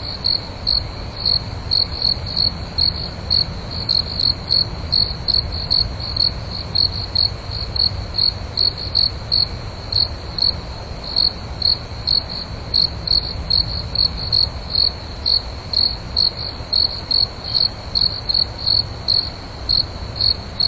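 Crickets chirping: short, high-pitched chirps repeating about three times a second in a slightly uneven rhythm, over a steady low background noise.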